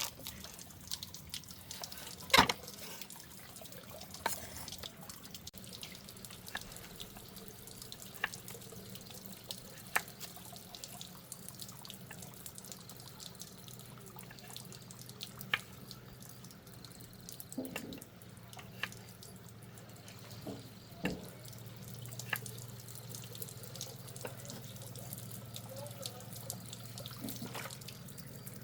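Water running and splashing, as at a tap or while washing, with scattered sharp clicks and knocks.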